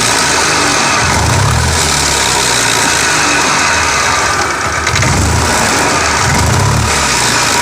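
Hero Pleasure Plus FI scooter, a 110cc single-cylinder, running with its rear wheel driven, the low rumble swelling and fading several times. Under it is a growl from the rear gearbox and rear-axle bearings, which are worn out and let the rear wheel wobble.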